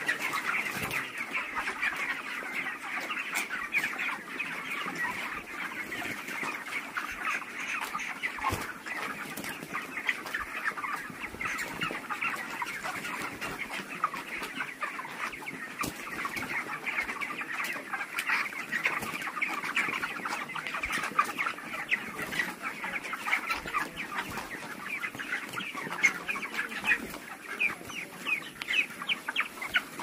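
A large flock of white broiler chickens clucking and calling without a break, many calls overlapping into a steady chatter.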